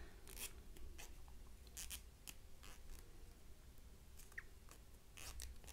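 Faint scratches and light clicks of a crochet hook working polyester yarn while double crochet stitches are made, with a low steady hum underneath.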